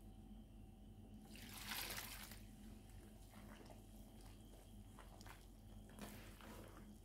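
Quiet kitchen handling sounds from bread-dough preparation: a short hissing pour or rustle about a second and a half in, then a few light clicks and taps.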